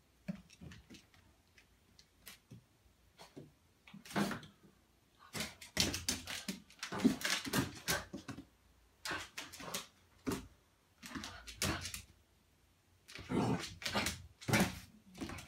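Golden retriever puppy barking repeatedly in clusters of short, sharp barks. The first few seconds are quieter, with only faint short sounds before the barking starts.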